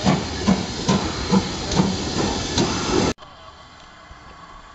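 Steam locomotive working, its exhaust beating a little over twice a second over a loud steady hiss of steam. About three seconds in the sound cuts off abruptly to a much quieter background.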